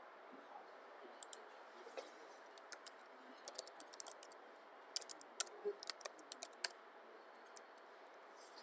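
Typing on a computer keyboard: an irregular run of quick keystroke clicks starting about a second in and thinning out to a few near the end, over faint steady hiss.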